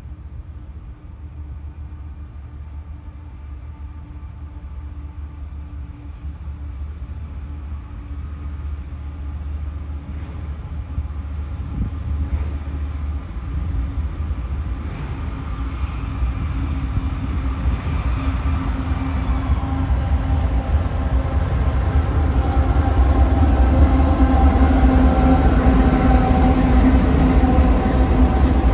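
Diesel freight locomotives led by NS 8099, a GE ES44AC, approaching with a steady low engine drone that grows louder throughout.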